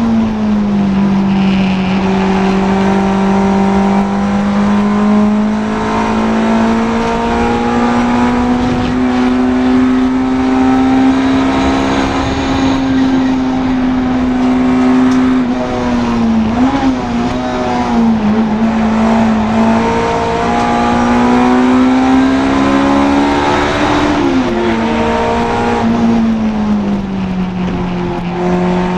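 Honda Integra DC2 race car's four-cylinder engine running hard at high revs, a loud continuous note that slowly rises and falls in pitch, with a few quick up-and-down flicks about halfway through and again near the end.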